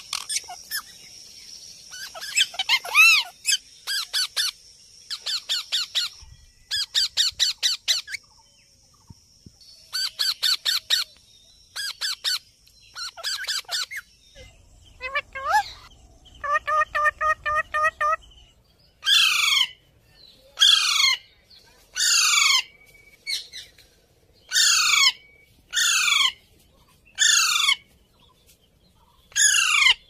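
Rose-ringed (Indian ringneck) parakeets squawking. Quick runs of shrill calls come first, then a string of single harsh calls, each falling in pitch, about one every second and a half.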